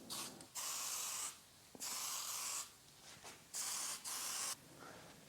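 Compressed-air blow gun fired in a series of short hissing blasts, each under a second, with brief pauses between them.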